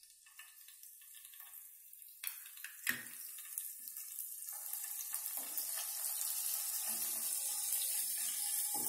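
Curry leaves sizzling in hot oil in an aluminium kadai, the hiss building from about two seconds in and growing steadily louder. A sharp knock comes near three seconds and another near the end.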